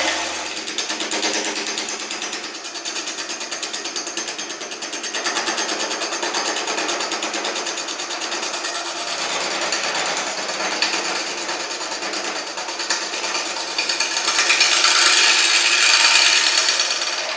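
Bowl gouge cutting a spinning casting of green epoxy resin and holly stems on a wood lathe: a rapid, even chatter of the tool against the work, growing louder and higher for a few seconds near the end.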